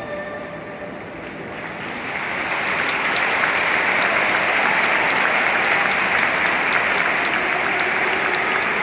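Large stadium crowd applauding. The clapping swells up about two seconds in and then holds steady.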